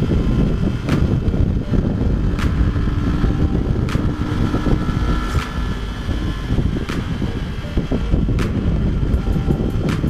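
Motorcycle engine running at speed under the rush and buffeting of wind over an onboard camera microphone. A faint click recurs about every one and a half seconds and comes faster near the end.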